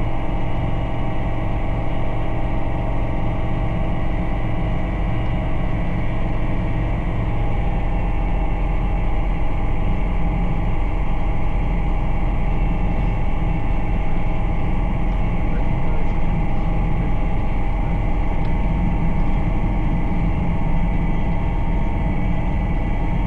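Bristell Classic light aircraft's piston engine and propeller running steadily at low taxi power, a constant drone with no change in pitch.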